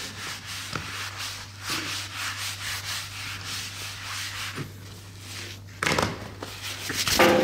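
Paper being rubbed over a smartphone's casing, wiping off cola after a soak, in quick repeated scrubbing strokes. There is a louder rub or knock about six seconds in.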